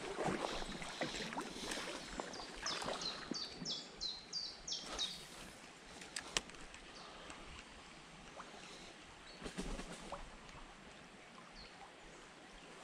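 Shallow stream water running steadily, with louder scuffs and splashes in the first five seconds. A small bird sings a run of about eight short, high, falling notes from about two and a half seconds in, and a single sharp click sounds about six seconds in.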